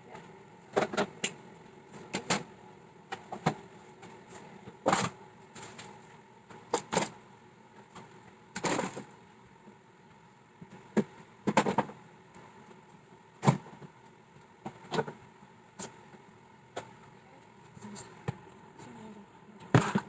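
Food containers, jars and bottles being taken out of a refrigerator and set down, a string of irregular knocks and clinks over a faint steady hum.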